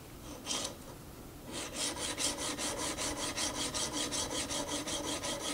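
Steel plane iron scraped back and forth on a wet coarse diamond sharpening plate, flattening the back of the blade. There is one short stroke about half a second in, then from about a second and a half a fast, even run of rasping strokes, several a second.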